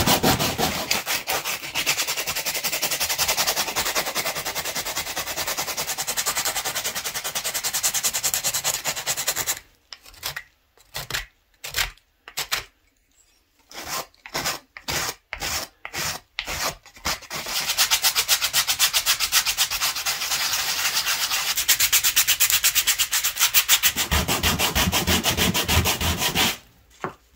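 Coarse 80-grit sandpaper on a sanding block rubbed in fast back-and-forth strokes over a hand-carved wooden spatula, smoothing off the saw marks. Partway through, the sanding breaks into short separate strokes with pauses for several seconds, then runs steadily again and stops near the end.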